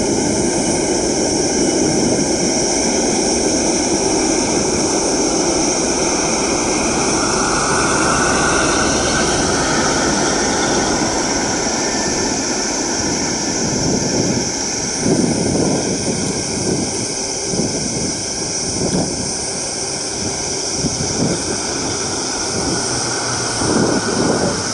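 Airbus A380-861's four Engine Alliance GP7200 turbofans running steadily at low power as the airliner taxis, a whining tone swelling about a third of the way through. In the second half, irregular low gusts of wind buffet the microphone.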